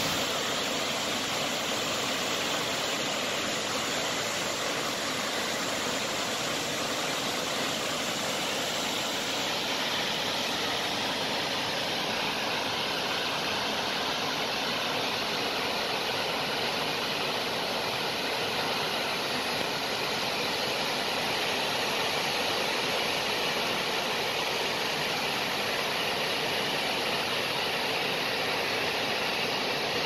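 Broad multi-tiered river waterfall pouring into a plunge pool: a steady, even rush of falling water.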